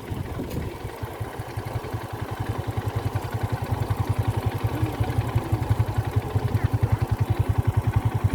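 Small engine running with a rapid, even putter, growing louder from about three seconds in.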